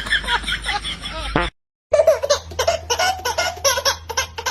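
Laughter in short, rapid, repeated bursts, cut off abruptly by a brief dropout to silence about a second and a half in, then resuming.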